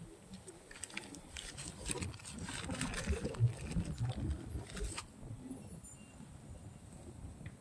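Thin black plastic nursery bag crackling and rustling as it is peeled by hand off a sapling's root ball, with some low thuds of handling; the crackling stops about five seconds in.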